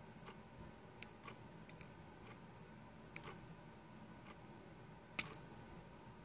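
Irregular light clicks and taps of small hard parts being handled, with sharper ones about a second in, about three seconds in and just before the end, the last one the loudest.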